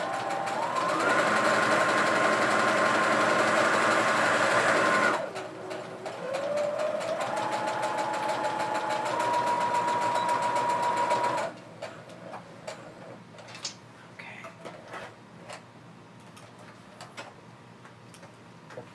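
Electric sewing machine stitching a seam in two runs. The motor whine rises in pitch as it speeds up, runs steadily for about five seconds and stops, then starts again and runs about five more seconds before stopping a little past halfway. Faint clicks and rustling follow.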